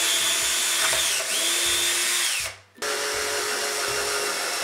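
Cordless drill running against a pine board in two long bursts. Its motor whine rises as it spins up and sinks as it slows, with a brief stop about two and a half seconds in.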